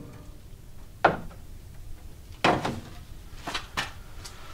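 A handful of separate sharp knocks and clanks, the loudest about two and a half seconds in, from tools and parts being handled while the subframe and steering rack are taken out of a car.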